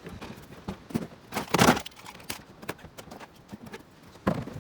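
Footsteps and knocks of scrap items being handled, with a louder clatter about a second and a half in and another near the end.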